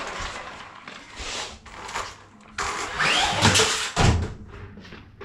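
Battery-powered RC quad bike's electric motor whirring in short bursts as it is throttled up, with the loudest, hardest acceleration a little past halfway through. It runs on a 2S lithium battery.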